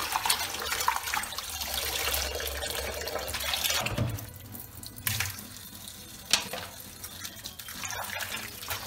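Tap water running into a bowl in a sink while hands swish and rub oyster mushrooms in the water to wash them. About four seconds in, the splashing drops to a quieter steady stream, broken by a few sharp knocks.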